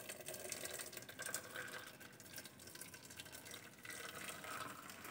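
Faint pouring of hot starchy water (maand) from boiled rice, trickling past a tilted lid into an aluminium pot below as the rice is drained.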